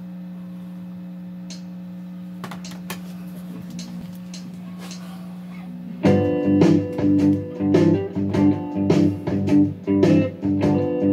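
A steady low hum with a few faint clicks. About six seconds in, a Telecaster-style electric guitar starts playing a loud, rhythmic blues chord pattern, about two strokes a second.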